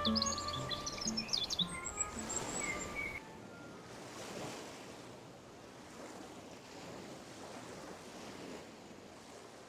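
Birds chirping over the last notes of a music passage for about three seconds, then a soft, steady rush of running water alone until the end.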